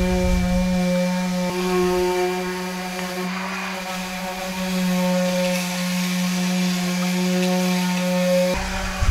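Electric power sander running steadily on cedar deck boards, a constant motor whine that drops away about eight and a half seconds in.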